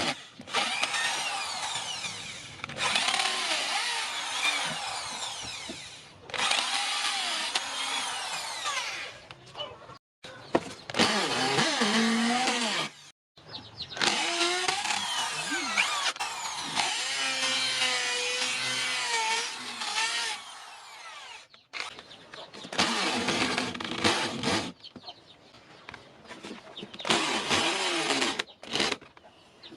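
A handheld power tool working on a knife, running in a series of short clips that start and stop abruptly, its pitch shifting as it bears on the work.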